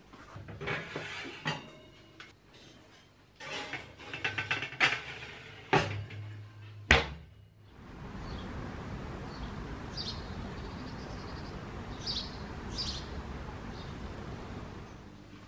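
Clicks, knocks and clinks of kitchen things being handled, ending in a sharp knock. After that comes a steady outdoor background noise with a few short bird chirps.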